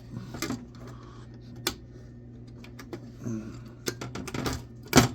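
Irregular light clicks and clacks of small hard computer parts, chips and boards, being handled and set down, the loudest near the end, over a steady low hum.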